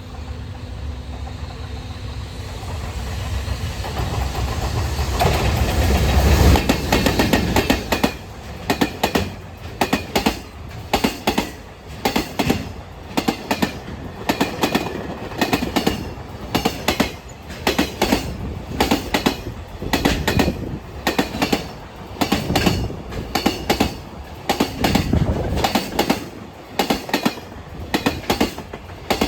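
Freight train passing: a rumble builds for about six seconds as the locomotive comes by, then a long string of wagons clatters over the rail joints with a regular clack-clack about once a second.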